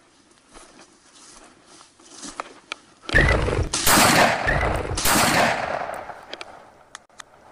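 Shotgun shots at flushed quail: several loud, close blasts in quick succession starting about three seconds in, each with a noisy tail that fades out, after a few seconds of faint rustling through field vegetation.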